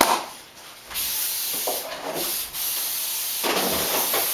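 Aerosol spray can spraying in long hissing bursts, after a knock at the start.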